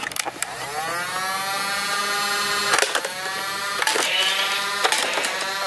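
Battery-powered flywheel motor of a semi-automatic Nerf-style toy dart blaster whining as it spins up, rising in pitch over about the first second, then running steadily. Several sharp clicks of darts being fired come from about two and a half seconds in, the whine dipping briefly at some of them.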